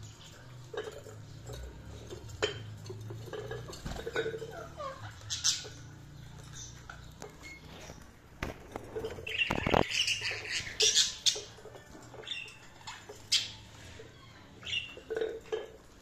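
Budgerigars chirping and chattering: a scattered run of short, sharp chirps, busiest and loudest about halfway through.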